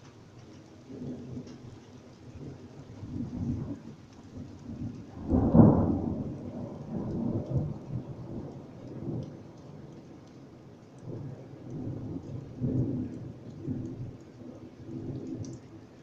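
Thunder rumbling and rolling in low waves, with one louder, sharper peal about five and a half seconds in, over light rain.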